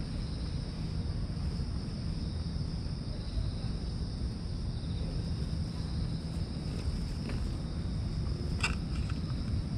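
Cat purring as it is stroked, a low steady rumble, over a steady high drone of insects. A brief sharp click comes near the end.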